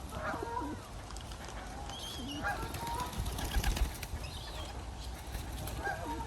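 Birds' wings flapping, with a flurry of rapid wing-beats about three and a half seconds in, among short calls of geese and other water birds.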